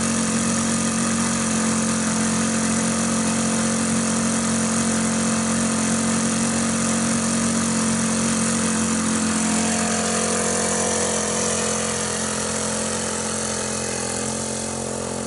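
A radio-controlled model aeroplane's motor running steadily in flight. Its pitch drops about nine seconds in, and it gets a little quieter toward the end.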